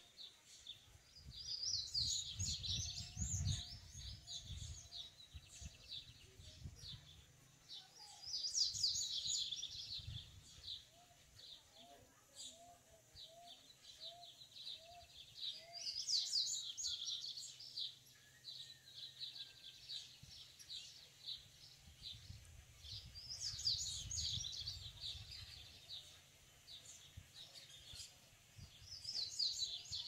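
Male yellow-bellied seedeater (papa-capim) singing from a perch. It gives fast, twittering song phrases of about two seconds each, repeated roughly every seven seconds, in breeding condition. A low rumble sits under some phrases.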